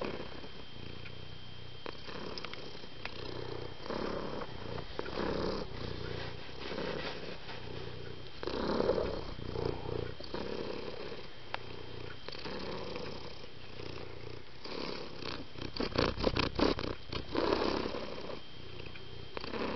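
Domestic cat purring, swelling and easing in slow waves about a second apart, with a quick run of sharp clicks about sixteen seconds in.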